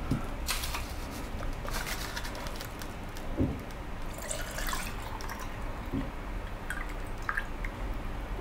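Melted candle wax being poured into a candle mold, dripping and trickling, with a couple of soft knocks from the vessels being handled.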